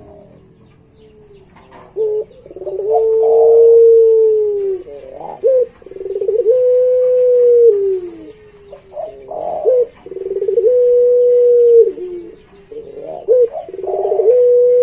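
Puter pelung, a Barbary dove bred for its long coo, cooing repeatedly, starting about two seconds in. Each of about four phrases is a short rough note followed by a long held coo that falls in pitch at its end.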